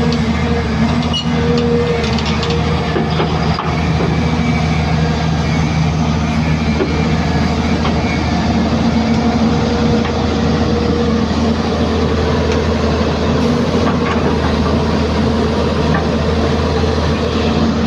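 Hyundai 215 hydraulic excavator's diesel engine running steadily under working load, its tone shifting a little as it works, with a faint knock about three and a half seconds in.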